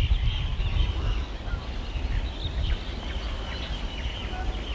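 Low rumble of wind on the microphone, with faint, scattered high bird chirps.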